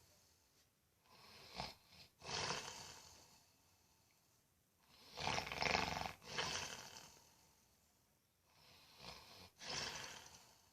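A man snoring: three snores about four seconds apart, each broken by a brief pause partway through.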